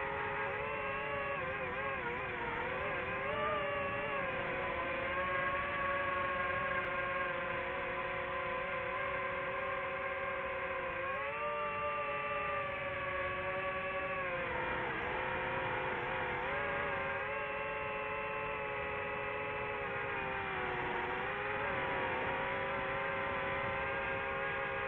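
Quadcopter drone motors and propellers whining steadily, the pitch rising and dipping repeatedly as the throttle changes through the flight.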